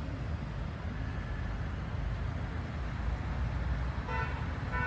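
Steady low rumble of road traffic, with a car horn tooting briefly twice near the end.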